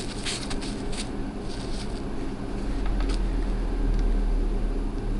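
Steady low mechanical hum from bench equipment during desoldering, getting louder about halfway through, with a few light clicks of the soldering and desoldering tools on the controller's circuit board.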